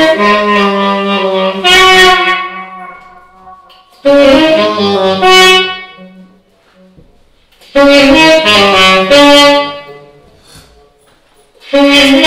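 Tenor saxophone played solo in free-jazz style: a string of loud phrases, each two to three seconds long, separated by pauses of a second or two.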